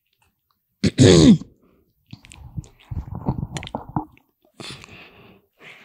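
A young woman's wordless hesitation close to a handheld microphone: a short hum falling in pitch about a second in, then soft breathy sounds and small mouth clicks.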